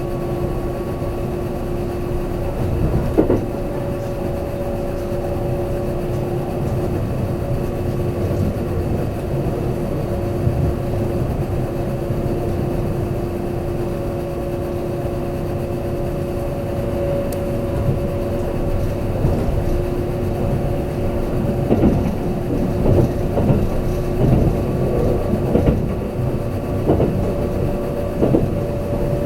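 Kintetsu limited express train running at steady speed, heard from inside the car: a continuous running rumble with a steady two-note hum from the drive. Irregular knocks from the wheels over the track join in during the second half.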